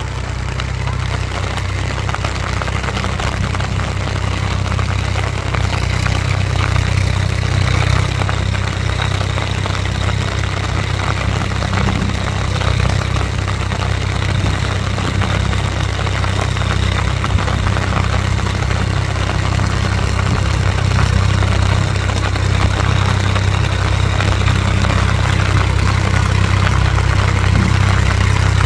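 Swaraj 963 FE tractor's diesel engine running steadily under load as it puddles a flooded rice paddy on cage wheels, growing gradually louder as it comes closer. An even hiss of rain lies over the engine.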